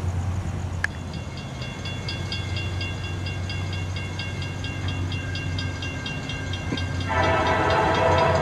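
Grade-crossing warning bells ringing in a rapid, steady rhythm. About seven seconds in, the approaching CSX GP39-2 locomotive sounds its horn, a loud chord of several tones held on.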